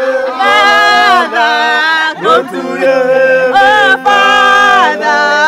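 A group of voices singing together in harmony, in a few long phrases with held notes.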